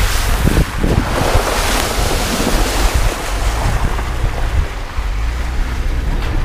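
Heavy wind buffeting an outside microphone as a Jeep Cherokee drives through a trail puddle, with water splashing off the tyres, loudest in the first few seconds.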